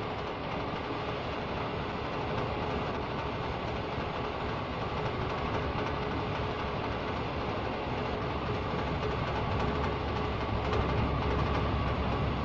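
Diesel hydraulic power unit of an auger borer running steadily, a dense machine din with a faint steady whine, growing louder with more low rumble near the end.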